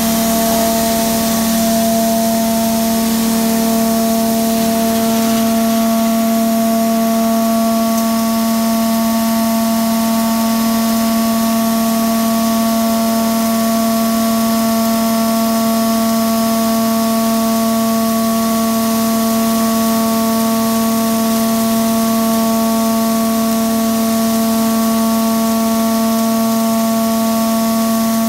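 Hammer crusher for PS ball running steadily: a loud, constant hum with a whine of overtones above it and a rushing hiss, unchanging in level.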